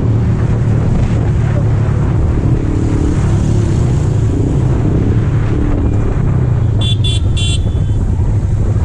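Yamaha sport motorcycle running steadily in fifth gear at cruising speed, its engine drone mixed with wind noise on the microphone. About seven seconds in, a horn gives three quick toots.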